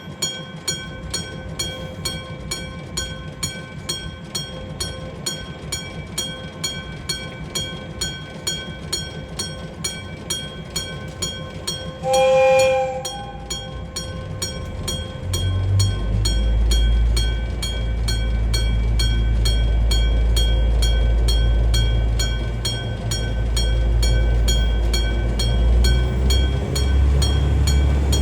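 Japanese level-crossing electric alarm bell (a hammer-struck gong) ringing steadily at about three strokes a second. About 12 s in a train horn sounds for about a second, and from about 15 s a passing train's low rumble grows louder than the bell, which keeps ringing.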